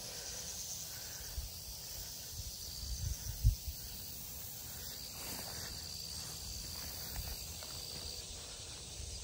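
Insects trilling steadily in the background, a high thin buzz, with a few low thumps on the microphone about three seconds in.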